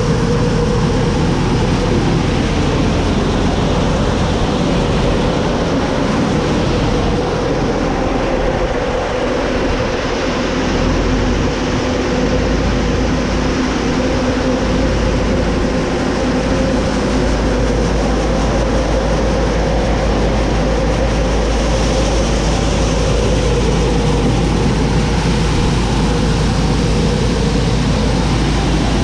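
Grain bin fan running steadily: a loud, even roar with a constant hum, having just been started.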